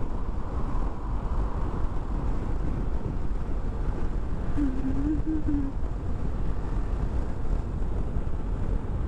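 Wind rushing over the microphone of a riding motorcyclist at road speed, a steady low rumble with the motorcycle's engine and tyre noise beneath it. A short wavering tone sounds briefly about halfway through.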